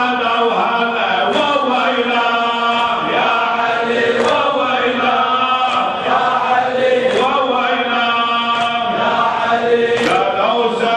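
Men chanting an Arabic Shia mourning raddadiya, a lament sung to a repeated refrain, with a sharp slap about every second and a half in time with the chant, from hands striking chests.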